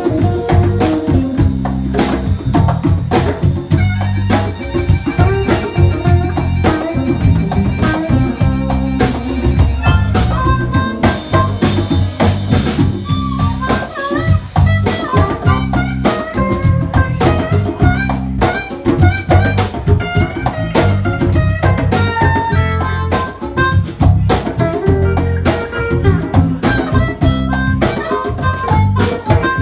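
Live blues band: a harmonica (blues harp) played into a vocal microphone, its notes bending and wavering in pitch, over electric guitar and a drum kit keeping a steady beat.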